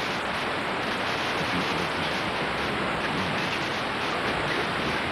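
Steady static hiss from a blank, snowy stretch of VHS videotape: an even rushing noise with no pattern to it.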